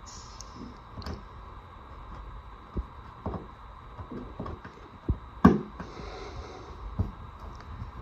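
Screwdriver working the terminal screws of a plastic wall connection plate, with scattered small clicks and knocks of metal on screw and plastic; the loudest knock comes about five and a half seconds in.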